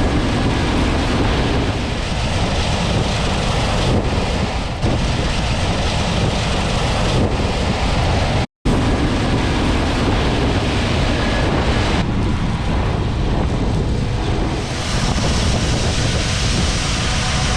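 Wind buffeting the microphone over the steady running of harvest machinery. There is a brief silent dropout about eight and a half seconds in.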